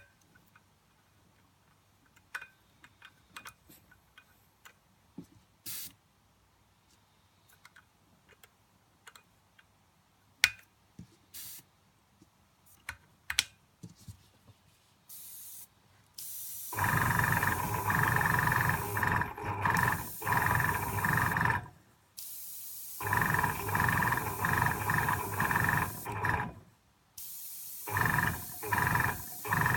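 For about the first half, a few light clicks and knocks of handling. Then the Foxhunter AS186 airbrush compressor runs with a steady hum and a hiss of air, cutting off and starting again several times, in runs of a few seconds with short gaps.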